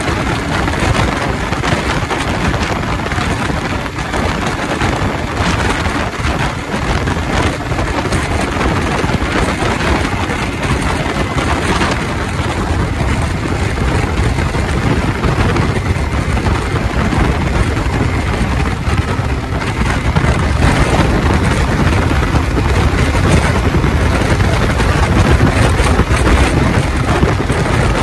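Wind buffeting the microphone on a moving motorcycle, mixed with road and engine noise. It grows a little louder over the last several seconds.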